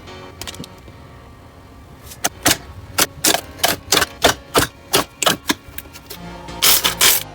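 Slime being worked by hand, making a run of sharp pops about three a second from about two seconds in, then a louder, longer crackle near the end, over soft background music.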